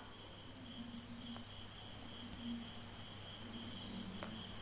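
Faint, steady high-pitched insect trilling, with a light click about four seconds in.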